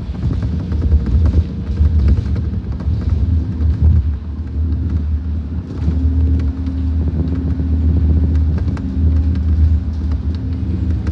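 Scania K230UB single-deck bus's diesel engine running, heard from inside the cabin as the bus moves at low speed: a steady low drone, with light rattles and clicks from the bus interior.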